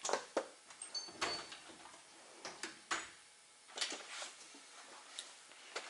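Scattered light clicks and clatters of hand tools and small parts being handled, about eight separate knocks over a few seconds.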